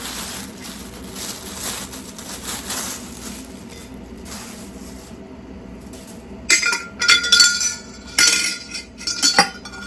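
Packaging rustling softly, then a quick series of hard clinks with a brief ring, as unboxed items knock together.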